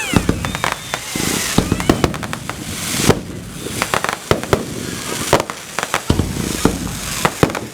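Fireworks display: a quick run of sharp bangs from bursting shells, with crackling between them and a few whistling tones near the start.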